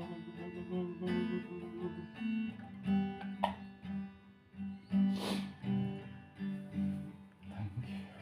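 Acoustic guitar being plucked and strummed, a run of separate notes and chords. A short hiss comes about five seconds in.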